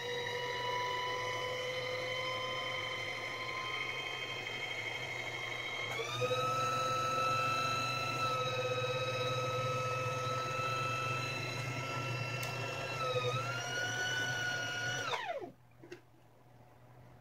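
Singer Heavy Duty 4432 sewing machine motor running to wind a bobbin, a steady whine. It speeds up about six seconds in, dips briefly near the end, then slows to a stop with falling pitch.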